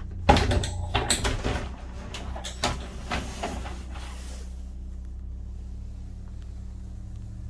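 A quick run of knocks and clatters from cabinet doors being handled, lasting about four seconds, with the loudest knock right at the start. A steady low hum continues underneath and is heard alone after the clattering stops.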